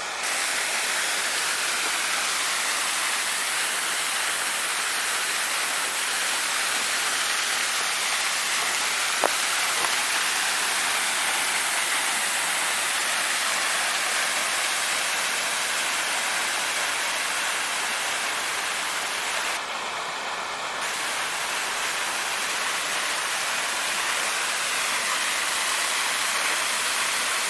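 Waterfall running: a steady rush of falling water, with a single sharp click about nine seconds in.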